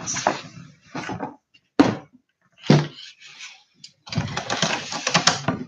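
Handling noise from the phone and the things being moved about: a few separate bumps and knocks, then a dense stretch of rustling and crackling near the end.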